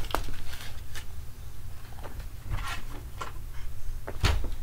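Scattered light clicks, knocks and rustles of objects being handled and set down at a desk, over a steady low hum.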